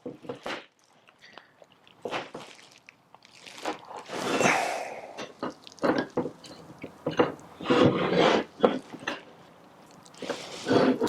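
Small turned metal parts being handled and fitted on a workbench: irregular clicks, knocks and scrapes.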